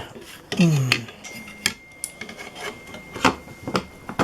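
Hard plastic housing of a digital chess clock being handled, giving a series of sharp clicks and knocks about half a second apart.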